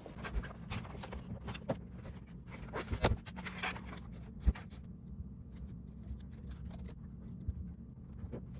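Laptop being handled and typed on: scattered soft clicks and taps, with one sharper knock around the middle and lighter key ticks after it, over a low steady hum.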